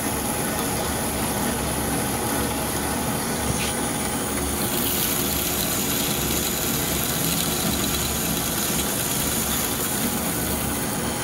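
Horizontal metal-cutting band saw running, its blade cutting slowly through a solid round metal bar with liquid coolant pumped over the cut: a steady machine drone with a hiss that grows brighter about four seconds in.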